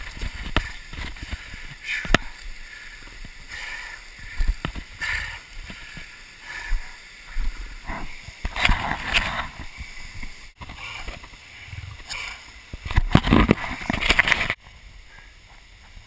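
Irregular rustling, scraping and knocks of a camera being carried through brush and over rocks, over a steady rush of falling water. The noise drops off abruptly near the end.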